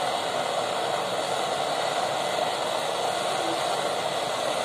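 Gas brazing torch (blow lamp) flame burning with a steady hiss while it heats a copper capillary joint on a refrigerator's filter drier.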